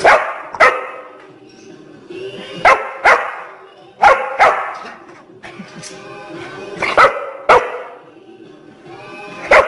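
A dog barking in short, sharp barks that mostly come in quick pairs, about nine barks in all.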